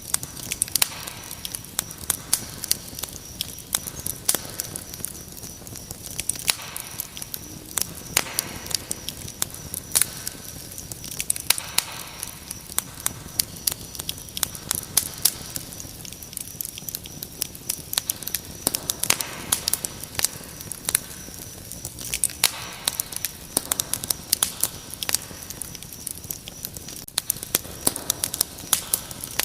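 Wood fire crackling with frequent sharp, irregular pops over a steady, high chirring of crickets.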